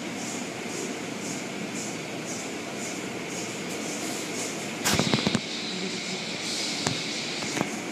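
Automatic tunnel car wash heard from inside the car: a steady rush of water spray and wash machinery with a faint swish repeating about twice a second. About five seconds in comes a burst of loud knocks and slaps against the car body, then two single sharp clicks.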